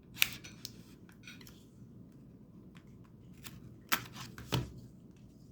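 A folding pocket knife and a chocolate bar's packaging being handled: rustling, with a sharp click about a quarter second in and two more clicks around four seconds in.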